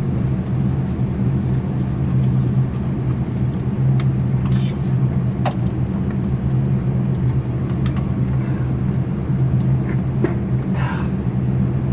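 Steady low engine hum of a vehicle idling nearby, unchanging throughout. Scattered light metallic clicks of hand tools are heard over it.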